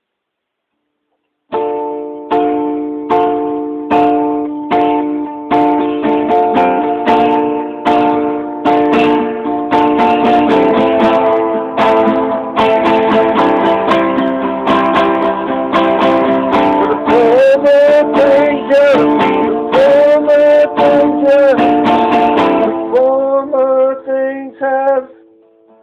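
Strummed acoustic guitar starting after about a second and a half of silence, the strums steady and growing denser. In the second half a voice sings a wavering melody over it without clear words.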